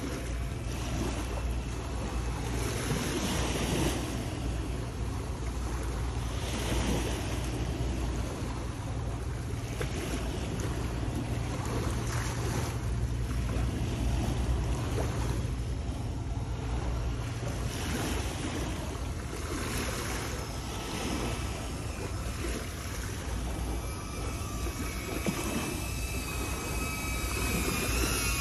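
Sea waves washing against shoreline rocks, surging every few seconds, with wind rumbling on the microphone. Near the end a faint high whine of the FPV drone's motors comes in, rising in pitch as the drone flies back close.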